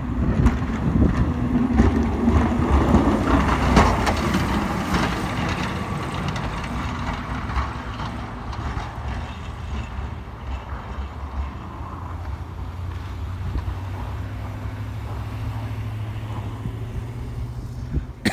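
A snowplow truck's engine running as it goes by on the road, loudest in the first few seconds. After that it settles into a steady low hum.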